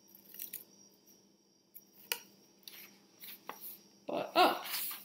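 A mailing tube being handled and opened: scattered light clicks, taps and scrapes, then a louder flurry of paper rustling about four seconds in as the rolled poster inside comes out.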